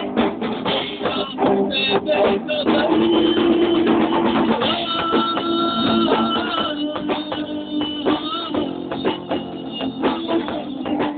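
A rock band playing live, with drum kit and guitar playing together.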